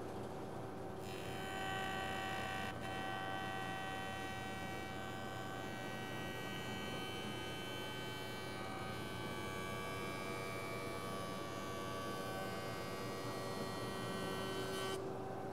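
Jointer running, with a steady motor and cutterhead hum; from about a second in until near the end the cutterhead takes a shallow cut across a cupped board, then the cutting noise stops abruptly as the board clears the knives.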